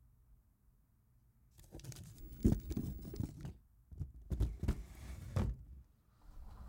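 Rustling and crinkling handling noise close to the microphone, with low thumps, in two spells of about a second and a half each.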